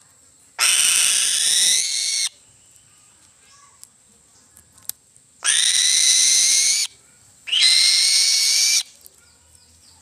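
An eagle giving three loud, long calls, each about a second and a half, with the pitch held fairly steady, while it feeds on a fish.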